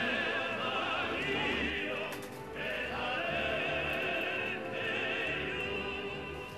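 Background music: an operatic voice singing long held notes with wide vibrato over an accompaniment, with a short break about two seconds in.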